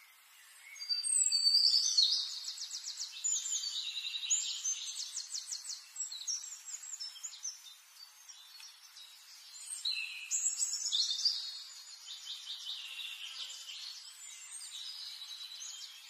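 Small finches singing and chirping: high twittering phrases with fast trills, loudest about a second in and again around ten seconds.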